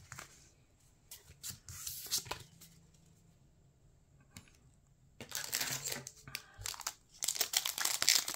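Foil wrapper of a Pokémon booster pack crinkling and tearing as it is handled and opened, starting about five seconds in and getting louder near the end. Before that, a few soft rustles of cards being handled, then a short quiet spell.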